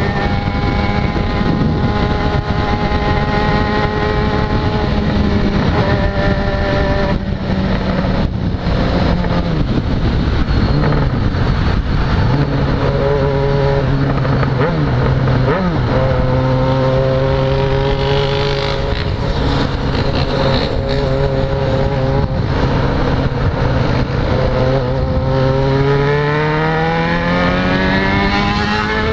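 Yamaha XJ6's 600 cc inline-four engine heard from the rider's seat at steady cruising revs over road and wind noise. The revs drop about nine to twelve seconds in, hold steady, then climb smoothly over the last few seconds as the bike accelerates.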